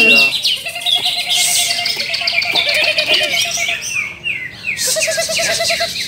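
Several caged greater green leafbirds (cucak ijo) singing at once in a contest round: a dense, overlapping chatter of quick chirps, trills and downward-sweeping whistles, with a lower, steadier note coming and going beneath.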